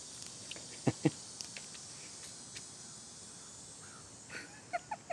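Faint, steady high-pitched insect chirring, with scattered light clicks and two short louder sounds about a second in.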